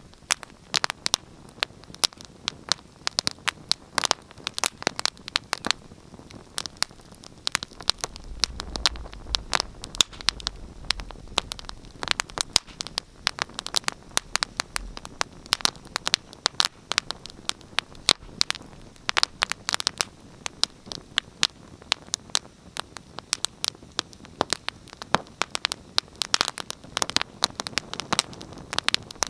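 Wood fire crackling in a fireplace: a dense, irregular run of sharp snaps and pops over a soft steady hiss, with a faint low rumble for several seconds in the middle.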